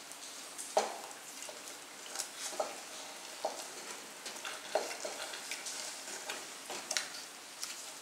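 Wooden spoon stirring a thick, sugary fruit mixture in an aluminium pot, with irregular scrapes and soft knocks of the spoon against the pot's sides and bottom about once or twice a second, over a faint steady hiss from the cooking mixture.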